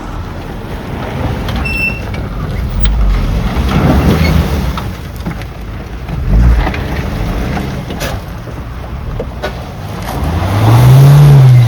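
Off-road 4x4 engine working on a trail, with a few heavy knocks along the way. Near the end the engine revs up and then back down.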